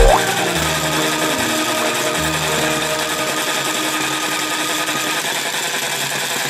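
Background music, a buzzy electronic tune of steady stacked notes, with a short rising whistle-like effect right at the start.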